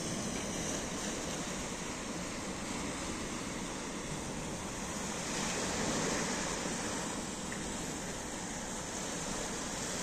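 Small waves of a calm sea breaking and washing onto a dark sand and stone shore and around rocks, a continuous wash of surf that swells a little about halfway through.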